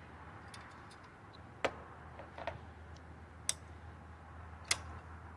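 Four short, sharp clicks about a second apart, typical of a caulking gun's trigger being worked to push out silicone sealant, over a low steady hum.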